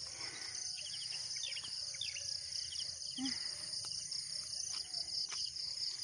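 Dense, steady chorus of insects trilling high-pitched in the surrounding vegetation.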